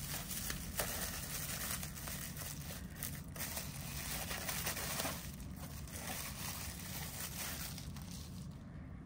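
Plastic bubble wrap crinkling and crackling as it is handled and peeled off a small spray bottle, fading near the end.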